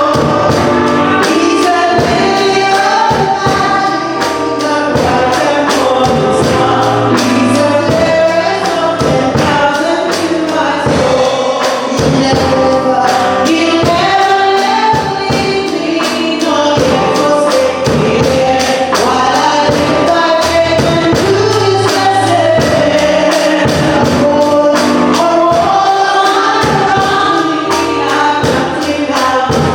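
Gospel music: a choir singing over instruments, with percussion, tambourine among it, keeping a steady beat.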